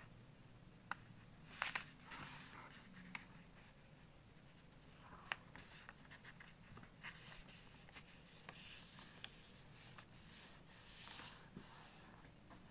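Faint rustling and swishing of a sheet of origami paper as fingers fold it in half and smooth the crease flat, with a few soft ticks of the paper and fingertips against the table.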